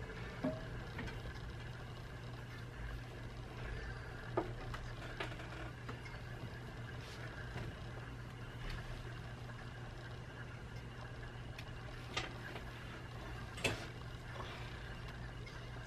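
Steady low room hum with a low rumble, broken by a few faint short clicks and rustles.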